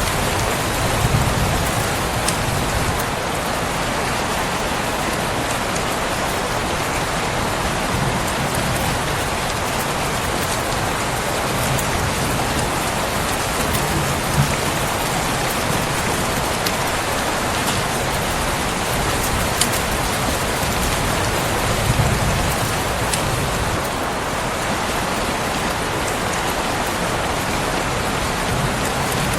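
Steady rain falling, with a sharp crackle from a fireplace now and then.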